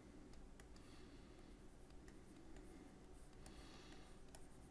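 Near silence: low room hum with a few faint clicks and light scratching of a stylus on a drawing tablet as brush strokes are painted.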